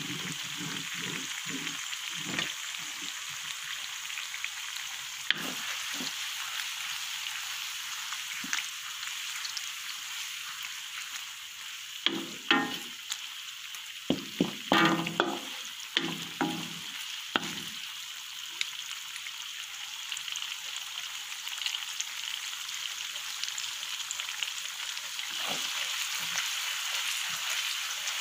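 Sliced onions, shallots and chilies sizzling in hot oil in a pan, with a steady hiss. A wooden spatula stirs and scrapes them in short strokes, most busily about halfway through.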